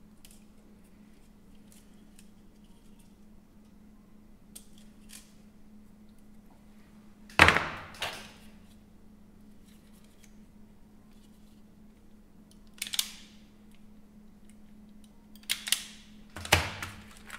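A few sharp snaps and clicks of hand work on a BMW i3 battery module's wiring and plastic connectors: the loudest about seven seconds in, another just after, then more near the end. A faint steady hum runs underneath.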